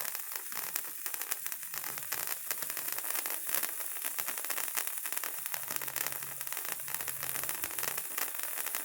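A World Class Fireworks Patriot Stick, a handheld sparkler-type firework, burning with a dense, rapid crackle over a steady hiss.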